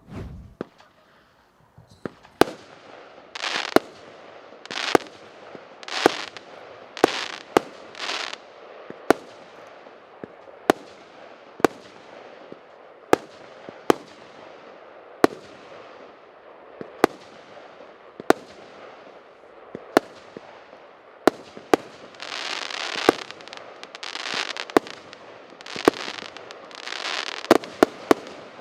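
Consumer firework cake firing shot after shot: a sharp bang roughly every second. Crackling hiss follows several of the bangs in two runs, one in the first few seconds and one near the end.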